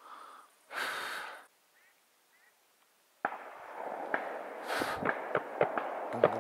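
A short breathy rush of noise about a second in; then, after a brief dropout, a steady hiss with a string of sharp cracks at irregular spacing: distant shotgun shots from other hunters, several in quick succession.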